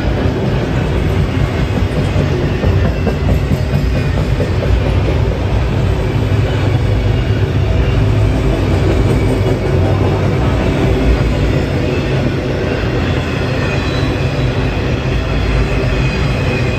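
CSX freight train of autorack cars rolling past close by: a steady, loud rumble of steel wheels on the rails.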